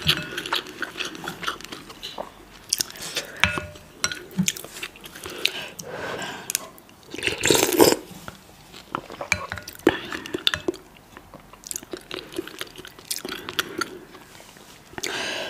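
Close-miked eating of ramen: slurping and chewing mouth sounds, with chopsticks and a soup spoon clicking against a glass bowl. About halfway through comes a loud slurp of broth from the spoon.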